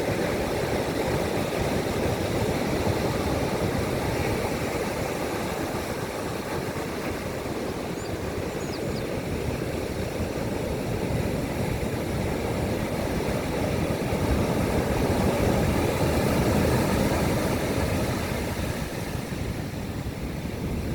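Strong wind buffeting the microphone over breaking ocean surf: a steady, low rumble that swells about two-thirds of the way through and eases near the end.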